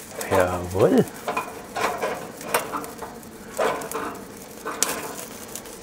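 Lamb kebabs sizzling and crackling over a red-hot infrared grill burner, with light clicks of the steel skewers as they are turned.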